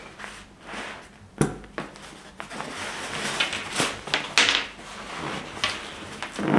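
Nylon compression sack of a Naturehike Snowbird down sleeping bag rustling and swishing as its straps are undone and the bag is worked loose and pulled out, with a sharp click about a second and a half in.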